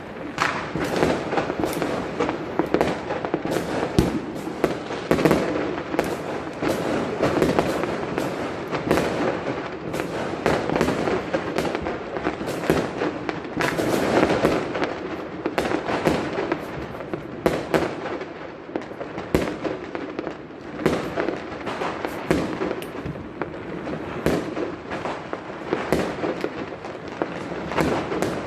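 Many fireworks going off at once, a continuous barrage of bangs and crackling pops, with sharp loud reports standing out every second or so.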